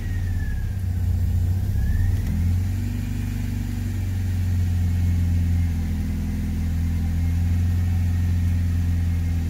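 Honda D16Y8 1.6-litre SOHC VTEC four-cylinder in a 4th-gen Civic idling just after a cold start, heard from inside the cabin: a steady low hum with a faint whine that falls and rises in pitch in the first two seconds, then settles. It is running on a P28 ECU map that the owner says makes it run a little weird at start-up and idle.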